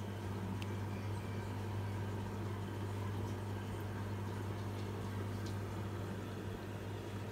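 Aquarium pump humming steadily, a low even hum with a faint hiss above it and a couple of faint ticks.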